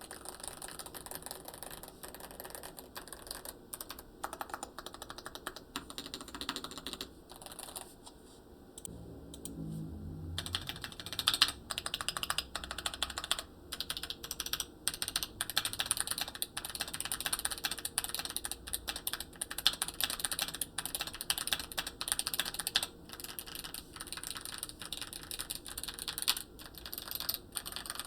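Typing on a stock Hall effect mechanical keyboard with magnetic switches, a steel plate and an aluminium case: a dense run of key clacks. There is a short pause around eight seconds in, and after it the typing comes back louder and brighter.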